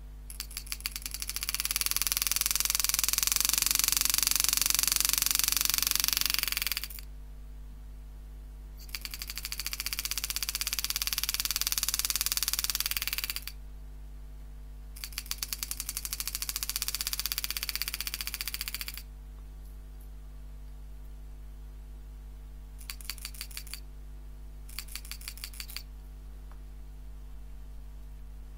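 Homemade hand engraving machine's handpiece hammering a 120-degree carbide graver through 304 stainless steel, in three long bursts and then two short ones. Each burst starts with separate strikes that quickly run together into a fast, loud buzz as the pedal raises the strike rate.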